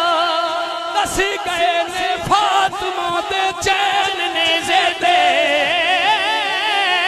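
Men singing a Punjabi manqabat through a PA: a lead male voice draws out long, wavering melismatic notes, with a backing vocalist and a few sharp knocks in the first few seconds.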